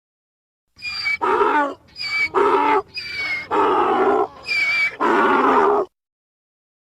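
Zebra-type barking bray, offered as a quagga call: four cycles of a short, high, whistling squeal followed by a lower braying note. It starts about a second in, and the last bray is the longest, ending about a second before the end.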